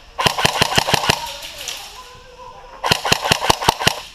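Airsoft gun firing two rapid strings of shots, about eight sharp cracks each in about a second, the second string about two seconds after the first.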